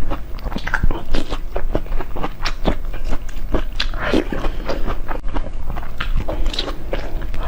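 Person eating: quick bites and chewing with a dense run of short wet clicks and crunches.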